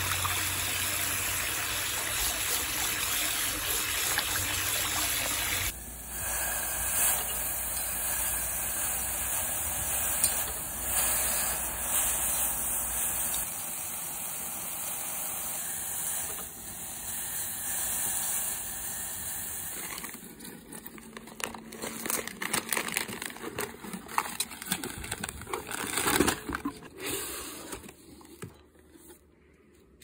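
Running water gushing and splashing over greens being rinsed by hand. After a sudden cut about six seconds in, a quieter steady hiss continues, and over the last ten seconds irregular light taps and clicks take over as the sound fades.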